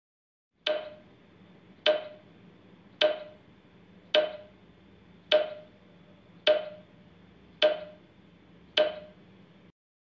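Countdown timer sound effect: eight clock-like ticks, a little over a second apart, each with a short ring.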